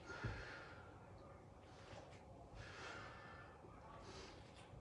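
A man's faint, heavy breathing from exertion: several breaths in and out, each a soft hiss, while he does leg raises. One soft low thump comes just after the start.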